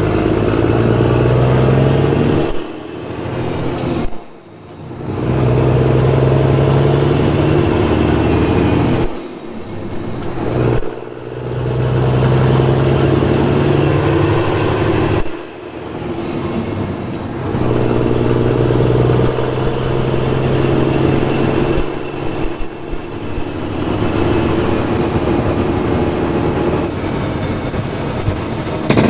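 Peterbilt 379 dump truck, loaded with about 15 tons of rock, accelerating through its gears. The engine builds in each gear and drops away at each shift, about four times, with a high whistle that rises and falls over each gear.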